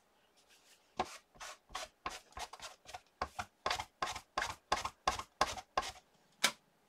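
A cloth rubbed back and forth over an inked rubber stamp on a clear acrylic stamping platform to clean off the ink: short scrubbing strokes, about three a second. A single sharp click near the end.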